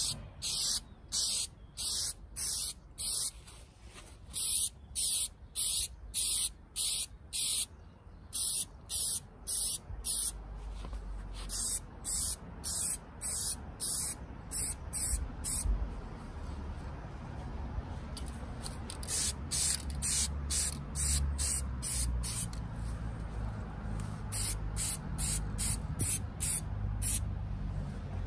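Aerosol spray paint can hissing in many short squirts, about two a second, in runs with brief pauses between them.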